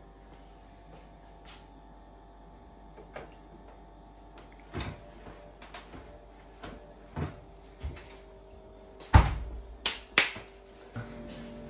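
Freezer drawer and door being handled and shut: scattered plastic knocks and clicks, then three louder knocks near the end as they close.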